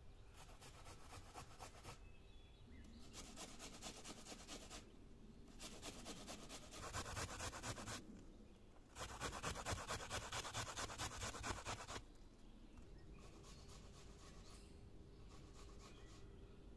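An onion being grated on a stainless-steel box grater: bursts of quick rasping strokes with short pauses between them, loudest about nine to twelve seconds in and fainter near the end.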